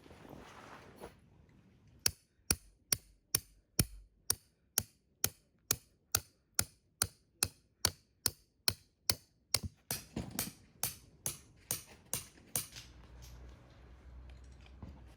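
Hammer blows driving a tent stake into the ground: a steady run of about two and a half sharp strikes a second for around ten seconds, then the hammering stops.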